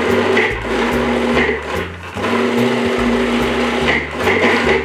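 Food processor motor running in short pulses as it chops ripe avocado for a chunky guacamole. It stops briefly about two seconds in and again near the end, each time starting again.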